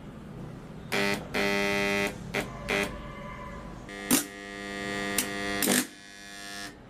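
A steady electrical buzz switched on and off: a few short bursts, then a longer one of almost two seconds that grows louder before stopping abruptly.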